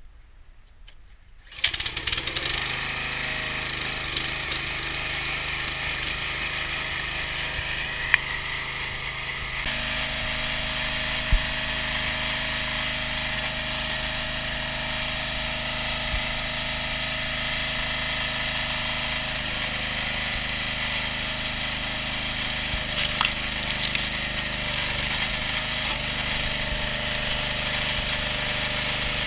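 Briggs & Stratton 6.5 hp petrol engine on a hydraulic log splitter starting about a second and a half in, then running steadily; its note changes about ten seconds in.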